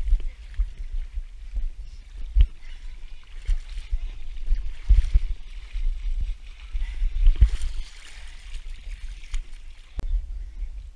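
Water splashing and sloshing as people wade waist-deep through a lake, with irregular low knocks and rumble on the microphone.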